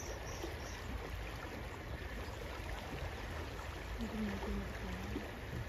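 Rain-swollen river in flood, rushing steadily with a low rumble. A brief voice is heard about four seconds in.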